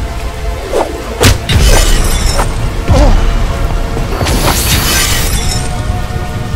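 Fight-scene sound mix: a dramatic film score under several heavy impact hits with deep booms in the first three seconds, then a long shattering crash about four seconds in.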